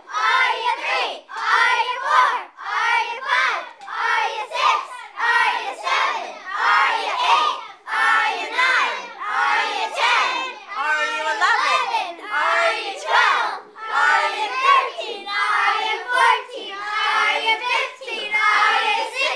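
Children's voices talking and shouting excitedly over one another, in short rapid bursts.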